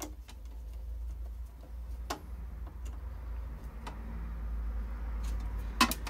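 Small scattered clicks and ticks of an insulated screwdriver turning the screw of a circuit-breaker lock-off clip on a consumer-unit MCB, with a sharper pair of clicks near the end, over a steady low hum.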